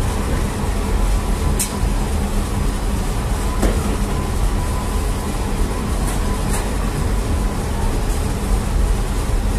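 Steady low rumble and hum of bakery machinery, the bread oven and dough machines, with a few short knocks about two, four and six and a half seconds in.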